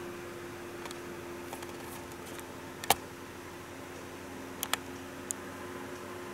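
Steady low room hum carrying two faint level tones. It is broken by a few sharp clicks: a loud one about three seconds in, a quick pair near five seconds, and a softer one just after.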